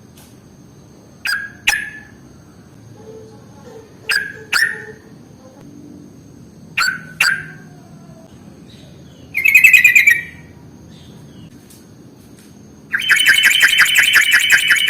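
Yellow-vented bulbul calling: three pairs of short sharp notes a few seconds apart, a brief rapid chatter about halfway, then a long fast rattling trill near the end.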